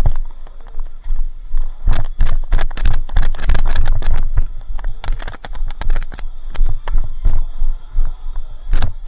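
Footsteps hurrying over a hard floor with gear knocking and rattling: a dense run of irregular knocks and clatter, thickest in the middle, then sparser.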